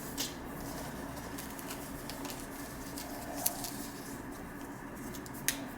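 Faint handling noises from a respirator being put on: a few light clicks and rustles, about three sharp ticks spread through the few seconds, over a steady low hum.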